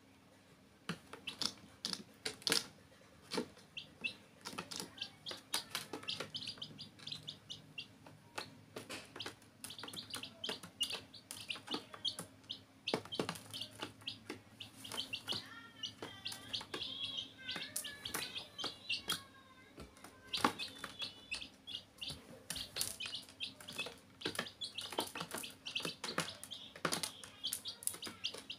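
Young chicks peeping, with many sharp clicks and taps as they peck at feed in a plastic bowl. There is a run of rising and falling peeps around the middle.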